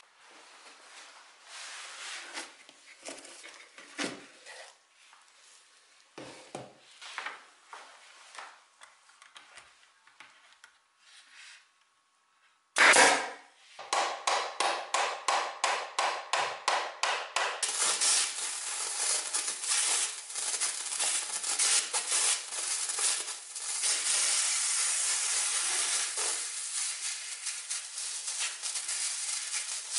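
Scattered light knocks from a wooden chair frame being handled, then one loud knock and a quick run of mallet blows on the frame, about three a second. From there on a steam cleaner hisses steadily as its nozzle jets steam onto the wood.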